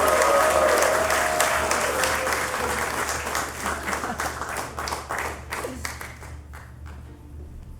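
Audience applauding, loudest at first, the clapping thinning and fading away toward the end.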